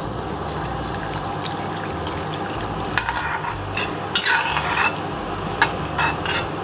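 Water poured into a kadai of simmering tomato rasam base, then a ladle stirring it, clinking and scraping against the pan in short bursts from about three seconds in.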